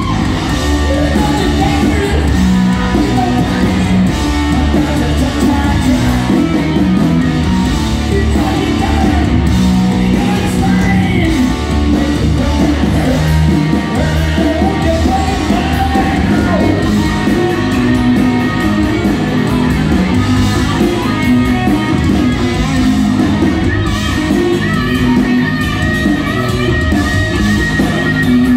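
Live hard rock band playing loud and without a break: overdriven hollow-body electric guitar over bass and drums, with a singer's voice and yells on top, heard through the hall's PA.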